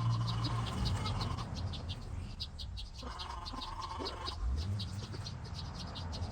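Outdoor ambience with a high, rhythmic chirping repeated about five times a second, over a lower sound that comes and goes.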